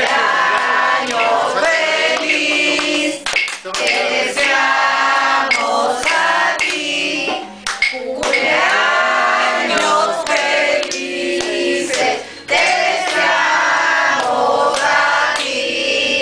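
A group of people singing a birthday song together to the celebrants in front of the cake.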